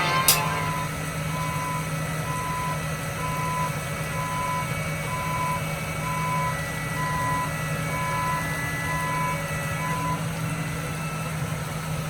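Reversing alarm on a heavy vehicle beeping about once a second in a single steady tone, over a steady engine hum. The beeps stop about two seconds before the end.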